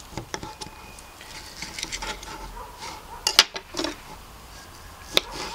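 Knife clicking and knocking against a wooden cutting board while a grilled steak is sliced: a few light taps, a louder clatter a little past halfway, and one more sharp knock near the end.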